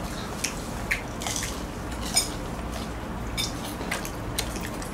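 Eating sounds from a fried-chicken meal: scattered short crackles and clicks of chewing and handling food, over a low steady hum.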